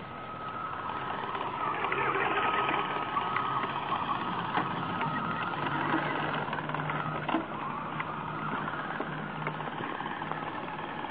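A vehicle's motor and gear drive running with a steady whine, a low hum and scattered sharp clicks and knocks: the sign of a broken gear, which the owner suspects is either a shifted motor pinion or a broken toothed gear.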